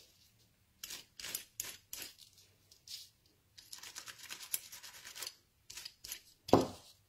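A die brush scrubbing over a foam pad, then fingers rubbing across it, to push die-cut cardstock pieces out of a cutting die. The sound is a series of short scratchy strokes followed by a stretch of steady rubbing. One dull thump comes near the end.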